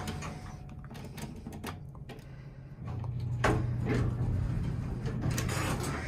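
Otis hydraulic elevator running, heard from inside the cab: a steady low machinery hum with a few light clicks around a second in. About three seconds in the hum grows louder, with a short rushing sound.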